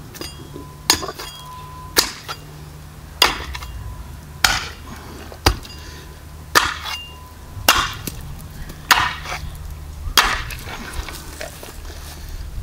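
Axe blows chopping into a pig's head on a wooden chopping stump, about nine strikes a little over a second apart, some leaving a brief metallic ring. The head is being split open to get at the tongue.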